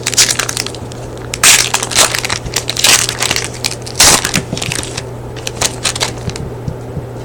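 A trading-card pack wrapper being torn open and pulled apart by hand, in a series of irregular crinkling, crackling bursts that die away near the end.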